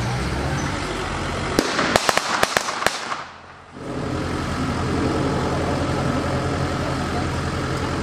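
A ragged string of about eight blank gunshots fired in quick succession over a steady engine drone. After a brief dropout, a Willys jeep's engine idles steadily.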